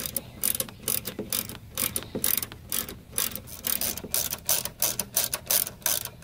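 Ratchet wrench clicking in quick runs of strokes as it drives 10 mm bolts back in to secure a headlight housing.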